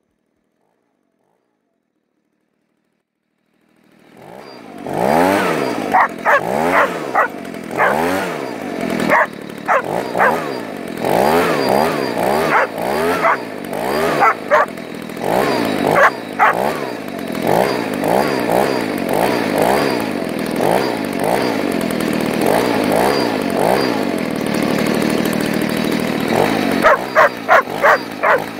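Silent for about the first four seconds, then a leaf blower running while a Belgian Malinois barks at it over and over, with a quick run of barks near the end.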